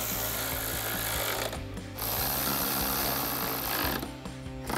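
Cordless electric ratchet running a 10 mm socket to tighten a grille bolt, in two runs of about two seconds each with a short pause between.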